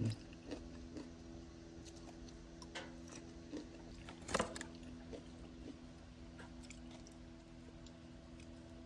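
Quiet chewing of spaghetti, with a few soft clicks of a metal fork against the bowl, over a steady low hum.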